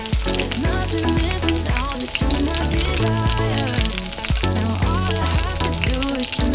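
Food sizzling and crackling as it fries in a pan, under background music with a steady bass line.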